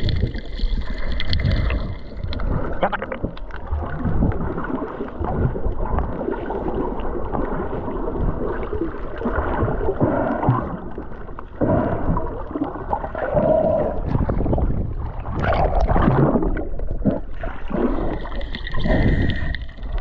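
Muffled underwater sound from a camera held below the surface: a churning low wash of moving water with irregular gurgles and bubbles.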